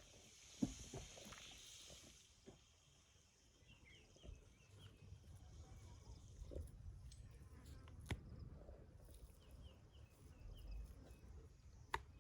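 Near silence, with a few soft knocks and faint rows of short high chirps.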